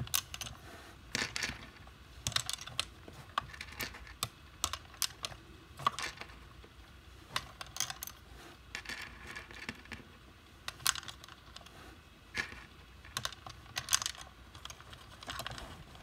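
Light, irregular clicks and taps of small hard plastic pieces: miniature toy eggs being set one by one into the door rack of a plastic toy refrigerator.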